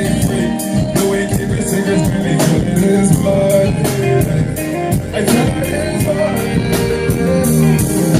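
Band music with a drum kit keeping a steady beat, guitar, and a voice singing.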